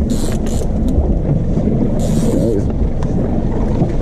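Boat's outboard motor running steadily at low speed, under wind on the microphone and sea noise, with two short hissy gusts.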